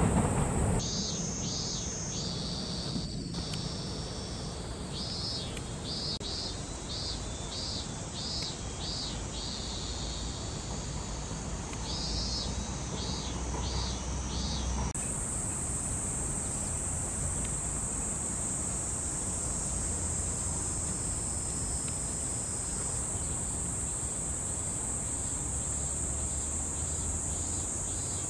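Steady, high-pitched insect chorus, with runs of short chirps repeated about twice a second.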